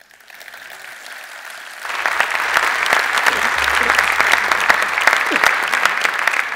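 Audience applause at the end of a talk. It starts light and swells to full, dense clapping about two seconds in.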